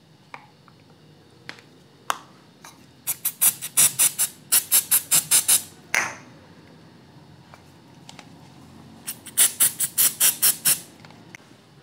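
Aerosol spray can spritzed in quick short puffs, about five a second, in two runs of two or three seconds each, with one longer puff between them.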